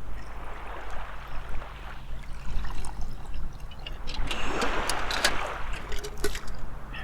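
Water sloshing and trickling, swelling about halfway through, with a run of sharp clicks in the second half and a low steady rumble under it.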